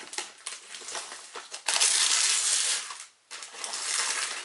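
Gift wrapping paper being torn and crinkled off a box, with a loud continuous rip lasting over a second about halfway through, then a brief dropout.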